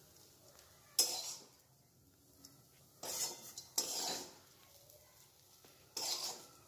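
Spatula scraping the pan and knocking against the bowl as a dry, crisp papad and onion stir-fry is scooped into a serving bowl: four short scraping clatters a second or two apart.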